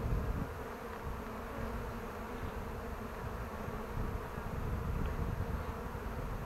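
Swarm of honeybees buzzing around an opened hive: a steady, even hum over a low rumble.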